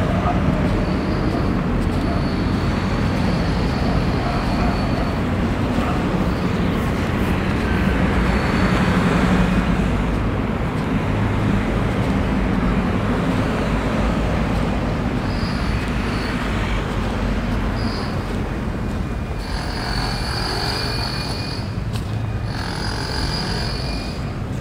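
City street traffic: a steady rumble of passing road vehicles, with one passing louder about nine seconds in. A faint high whine comes and goes in the last few seconds.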